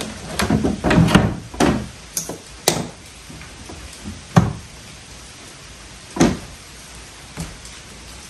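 Black plastic boat hatch being set into its opening in an aluminum jon boat bench: a run of knocks and clatters as it is fitted, with two single sharp knocks about four and six seconds in.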